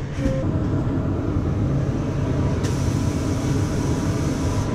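Steady low hum of shoe-factory machinery, with a high hiss joining about two and a half seconds in.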